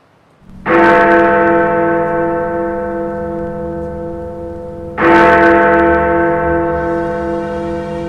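A large, deep bell tolling: struck twice about four seconds apart, each stroke ringing on and slowly fading.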